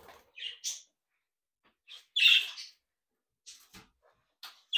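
Budgerigars (pet budgies) giving scattered short, high chirps, the loudest a burst of calls about two seconds in.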